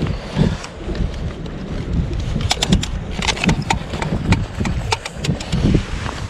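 Wind buffeting the microphone in uneven gusts, with a quick run of about a dozen sharp clicks a little under halfway through.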